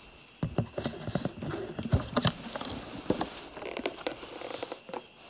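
Irregular wooden knocks and clicks from a wooden chest being handled on a wooden table, its lid opened and the hands working inside it. A faint steady high whine runs underneath.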